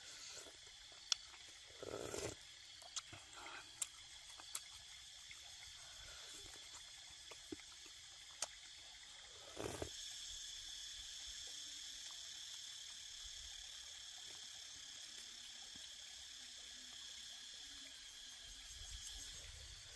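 Quiet eating sounds: soft sipping from a spoon and chewing, with scattered sharp mouth clicks, over a steady high-pitched insect drone that grows a little louder about halfway through.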